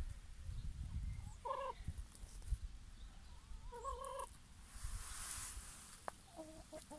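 Hens giving a few short, soft clucks: one about a second and a half in, a two-note call around four seconds in, and a couple of small ones near the end, over a low rumble.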